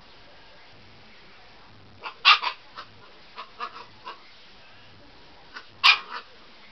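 Husky puppy giving short, high-pitched play yaps: a loud one about two seconds in followed by several softer ones, and another loud one near the end.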